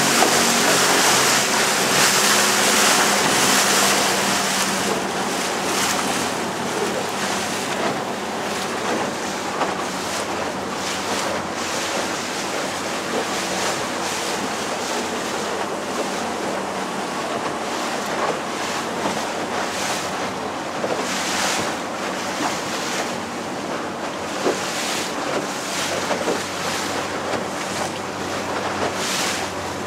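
A small boat's motor running steadily under way, with water rushing past the hull and wind buffeting the microphone. The noise is loudest over the first few seconds, then settles with occasional gusts and splashes.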